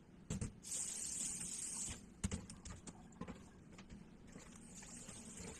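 Kitchen sink: water running from the tap with a high hiss, broken by knocks and clatter of a plastic colander and a bowl being handled. The tap runs loudest for about a second near the start, then more softly again from about four seconds in.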